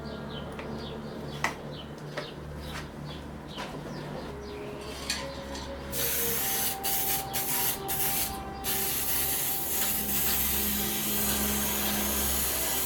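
Aerosol spray paint can hissing: from about halfway through, a few short sprays, then one long steady spray. Before that, light rubbing and clicks.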